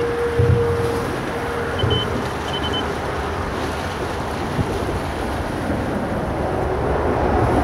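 Wind blowing over the microphone, a steady rushing noise with a couple of harder low buffets in the first two seconds.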